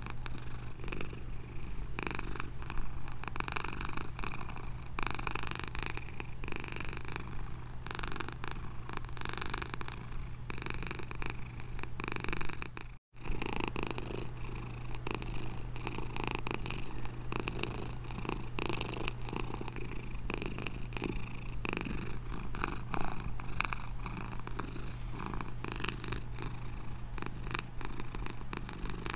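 Domestic cat purring steadily and continuously, with one brief drop to silence about halfway through.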